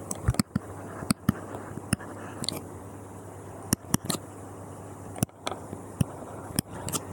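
A pen writing, with irregular sharp taps and clicks as it strikes the writing surface, over a steady low hum.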